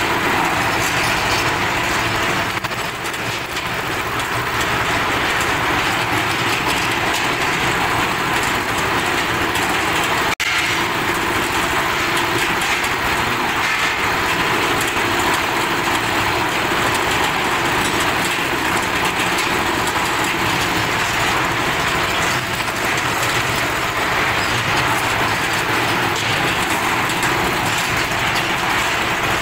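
Steady mechanical running of a concrete mixer's motor and turning drum, with a very brief cut-out about ten seconds in.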